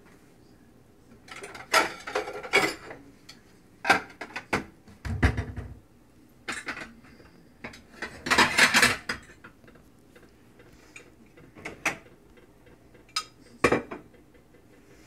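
Dishes and cutlery clinking and clattering in irregular bursts, with a dull low knock about five seconds in and a longer clatter about eight seconds in.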